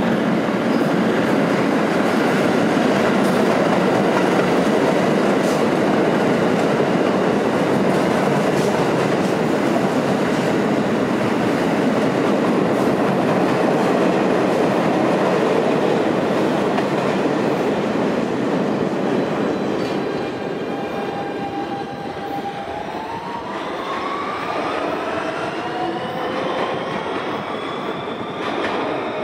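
New York City subway train running past on a far track in an underground station: a loud, steady rumble and clatter of wheels on rails that dies down after about twenty seconds. Over the last several seconds, a rising electric motor whine as a train gathers speed.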